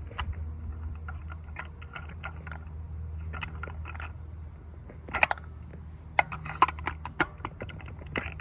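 Metal clinks and taps of a socket and extension working down in a spark plug well: irregular clicks, with a loud short cluster about five seconds in and a quick run of sharp clicks a second later.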